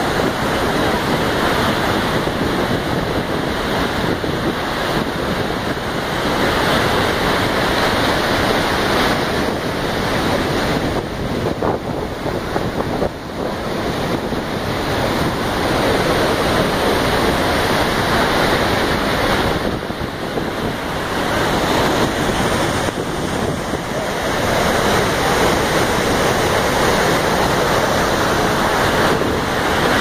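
Steady roar of Iguaçu Falls: a great volume of water pouring over the falls and churning in the river below.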